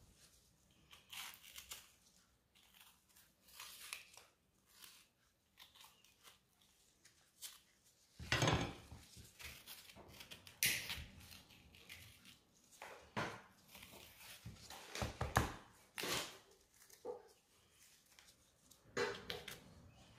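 Small knife cutting and scraping the white ribs out of red bell pepper halves on a wooden cutting board: scattered faint scrapes and soft knocks, coming louder and more often from about eight seconds in.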